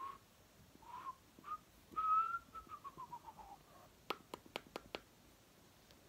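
A person whistling through pursed lips: a few short notes, then a longer note that steps down in pitch as a string of short falling notes. About four seconds in come six quick, sharp clicks.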